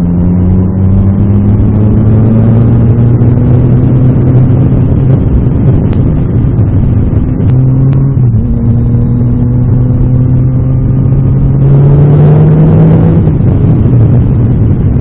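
Yamaha MT-09 Tracer's three-cylinder engine pulling along the road over a steady rush of noise. Its pitch climbs slowly, breaks and dips about eight seconds in, then rises again and is loudest a couple of seconds before the end, where it eases off.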